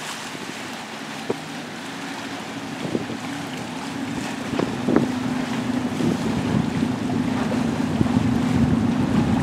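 A boat's engine running with a steady hum that grows louder from about halfway through, under wind buffeting the microphone and the wash of choppy water, with a few knocks.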